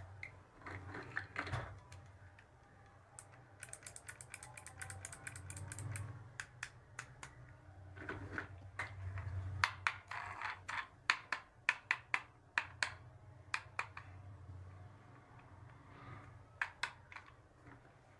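Small plastic toy pieces being handled and set down: a run of light clicks and taps, with quick rattling flurries of clicks twice.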